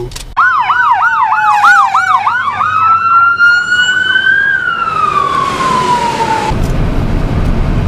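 Emergency vehicle's electronic siren, first a fast yelp of quick rising-and-falling sweeps, then switching to a slow wail that climbs and falls once before cutting off suddenly about six and a half seconds in. Steady road noise of the moving car follows.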